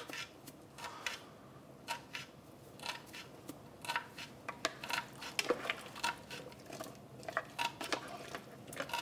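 Kitchen clatter: light, irregular clinks and taps of a spoon and utensils against a metal cooking pot as salt is stirred into diced potatoes in water.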